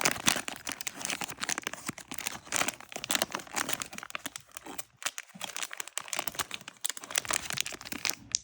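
Plastic and cardboard packaging being crinkled and torn by hand in irregular bursts, a struggle to open a sealed blind box.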